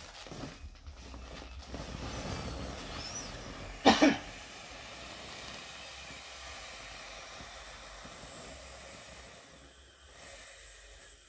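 Yellow vinyl inflatable bunny being handled and squeezed to deflate it: rustling vinyl and a faint squeak, then a short loud burst about four seconds in. After the burst, a steady hiss of air escaping from the toy fades out near the end.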